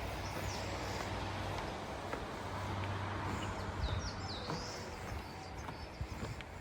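Steady rush of falling water, with birds chirping over it a few times: once about half a second in and again around the middle.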